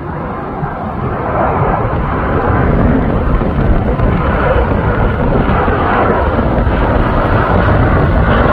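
Jet noise from the twin turbofan engines of a Qantas Boeing 737-800 airliner passing overhead on approach with its landing gear down. The noise grows steadily louder as the aircraft comes nearer.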